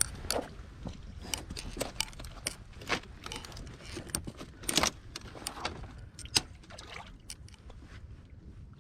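Handling and movement noise as an angler works his way down the bank to land a hooked fish: irregular clicks, scrapes and knocks over a steady low rumble, with the sharpest knocks about five and six seconds in.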